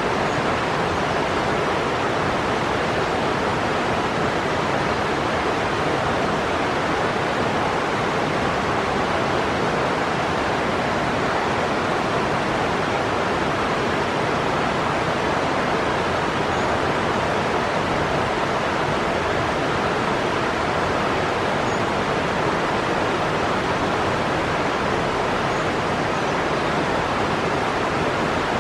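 Steady, even rushing noise with no let-up, like a fast stream or waterfall.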